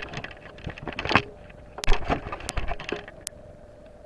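Handling noises: things being moved about and rustled, with three sharp clicks in the second half, then a faint steady hum.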